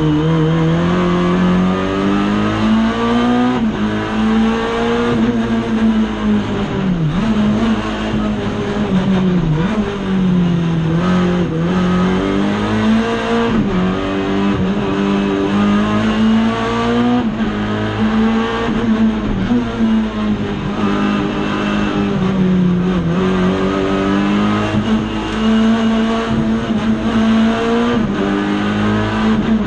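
Racing car's engine heard from inside the cockpit under hard driving, the revs repeatedly climbing and then dropping sharply every second or two through gear changes and corners.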